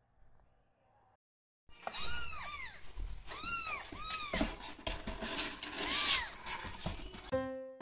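Young kittens mewing again and again in high cries that rise and fall, several overlapping at times, with scratching and rustling as they clamber about in a cardboard box. The mewing starts about two seconds in.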